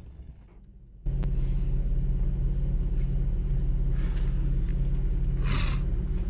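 Jeep's engine idling with a steady low hum that comes in suddenly about a second in. A brief rustle is heard near the end.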